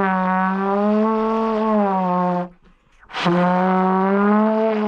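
Trombone played in two long, held low notes with a short break between them about two and a half seconds in; the pitch wavers slightly within each note.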